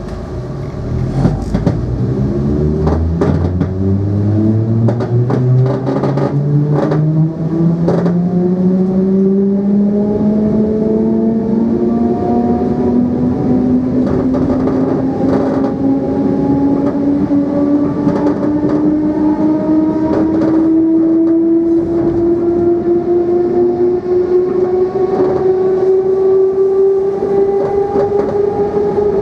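Traction motors and gearing of a Dutch Mat'64 (Plan V) electric multiple unit whining as the train accelerates, the pitch rising slowly and steadily throughout. There are a few sharp clicks and knocks in the first eight seconds.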